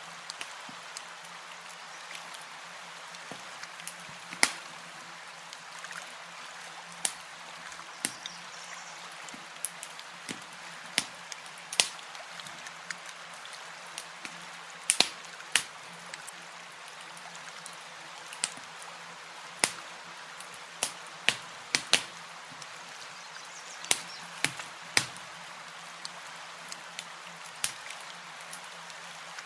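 Campfire crackling: irregular sharp pops and snaps, a few close together, over a steady hiss.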